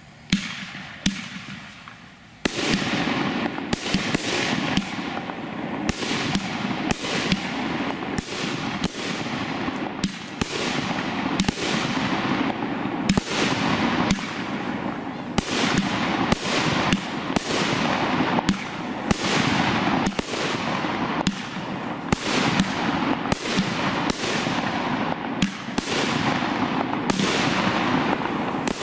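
Fireworks cake firing: one or two single shots, then from about two and a half seconds in a continuous barrage of sharp shots about once a second or faster over a steady hissing din.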